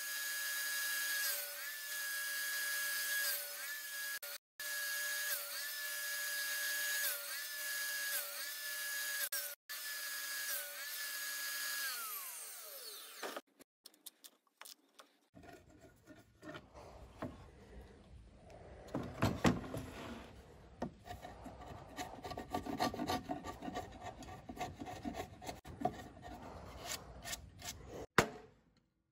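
Portable table saw running while its blade nibbles repeated kerf cuts across a pressure-treated 4x4 for a half-lap notch, the motor's pitch dipping again and again under load. About 13 seconds in the saw winds down, and then a chisel scrapes and knocks out the wood between the kerfs.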